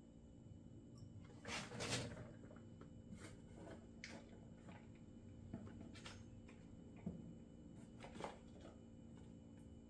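Quiet handling of chainsaw parts during assembly: scattered faint clicks and short rustles, with one louder rustle about a second and a half in, over a steady low hum.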